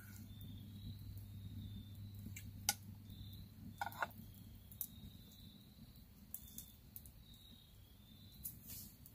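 Wood fire crackling with scattered sharp pops, and an eating utensil clicking against a skillet, the loudest click about two and a half seconds in. A faint high chirp repeats steadily in the background.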